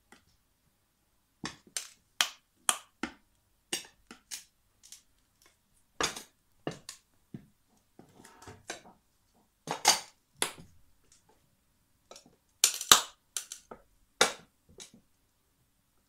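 Black 20 cm platform high heels stepping onto and tapping ceramic plates: a long irregular series of sharp clacks and clinks of hard heel on plate, with a brief scrape and the loudest cluster of knocks near the end.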